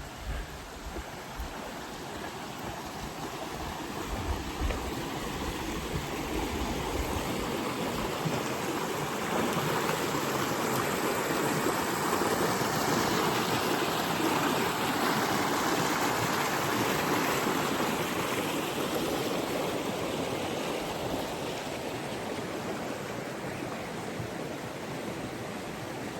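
River water rushing steadily, a continuous rush that grows louder over the first ten seconds or so and eases off slightly near the end.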